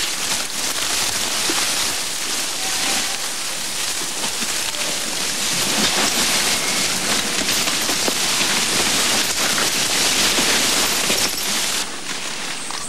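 Dry brush and leaves rustling and crackling steadily, with scattered small snaps.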